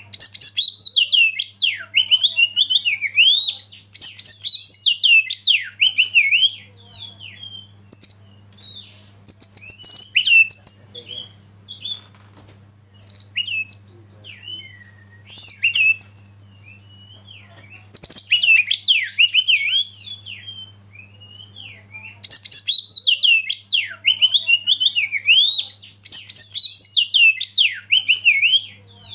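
Oriental magpie-robin singing: rapid, varied whistled phrases sliding up and down. They come in long bouts with scattered shorter calls and a few harsh chattering notes in between, over a steady low hum.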